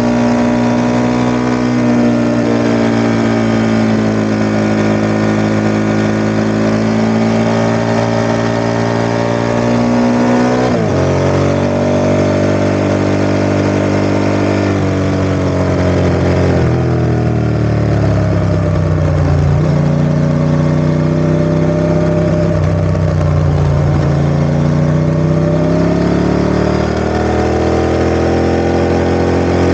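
Ducati ST4S's V-twin engine running, its pitch steady at first, then falling sharply about a third of the way through and afterwards dipping and climbing slowly with the throttle.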